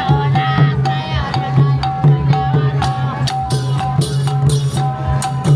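Music with drums and percussion over a steady bass, a short high note repeating about twice a second.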